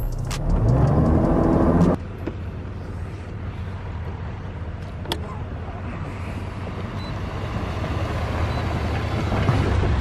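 Chevrolet pickup truck's engine running as it tows a bass boat on its trailer, a steady low rumble heard from the boat. It is louder with rising pitch for the first two seconds, then drops suddenly to a quieter, even rumble.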